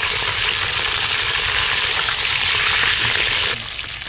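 Whole fish deep-frying in hot oil in a wok, a dense sizzle full of crackles. About three and a half seconds in, it drops suddenly to a softer sizzle.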